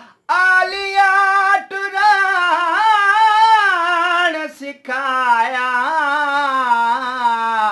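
A man singing a qaseeda unaccompanied in a high, full voice. He sings three long, ornamented held phrases with short breaths between them, and the last one sinks to a lower note near the end.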